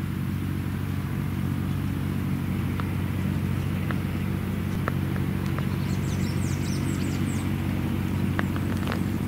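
A motor running steadily with a low, even hum. Faint, short high chirps of small birds come about six to seven seconds in.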